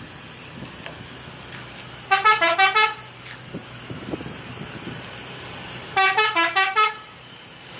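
Four-trumpet telolet bus horn playing a quick run of changing notes twice, about two seconds in and again about six seconds in, over a steady background hiss.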